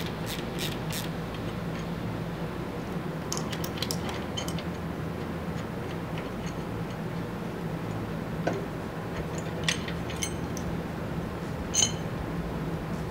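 Hand ratchet clicking in a quick, even rhythm of about three clicks a second as the handlebar clamp's socket-head screws are backed out, stopping about a second in. After that come scattered light metallic clicks and clinks as the screws and clamp are lifted off, over a steady low hum.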